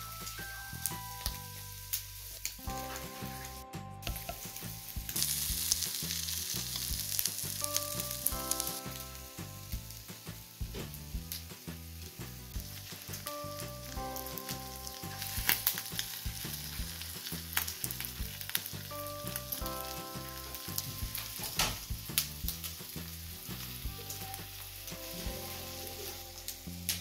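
Pork sizzling on a hot tabletop grill pan, a steady hiss with frequent sharp pops. Soft background music with a repeating melody plays over it.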